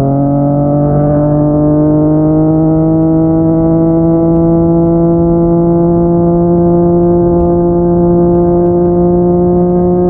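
Yamaha MT-09's inline three-cylinder engine through a Yoshimura R55 slip-on exhaust, pulling steadily in one gear. The engine note steps up in pitch right at the start, then rises slowly and evenly as the bike gathers speed.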